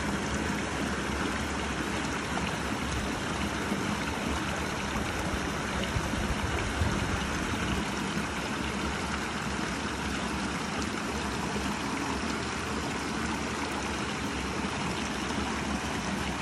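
Small creek running over and between boulders, a steady rush and splash of water.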